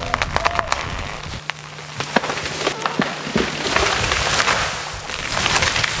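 A large conifer falling after being felled: wood cracking and splintering, then branches snapping and crashing as the tree comes down, the crash swelling near the end. A low steady hum runs underneath.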